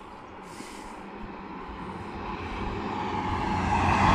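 LNER Azuma high-speed train approaching along the track. Its running noise grows steadily louder and reaches full strength near the end.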